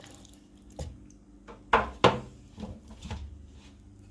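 Seasoned chicken pieces being moved around in a foil-lined pan: a series of knocks and thuds, with two loud ones close together about two seconds in.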